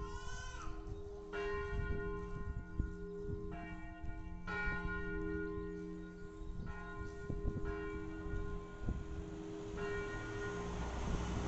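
Church tower bells, from a ring of eight tuned in B-flat, ringing in peal: strokes land roughly once a second, each leaving a long, ringing hum that overlaps the next.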